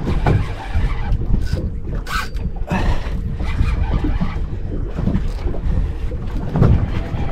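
Wind buffeting the microphone as a rumbling rush, over choppy sea water moving around a small boat, with a few brief sharper sounds about two seconds in.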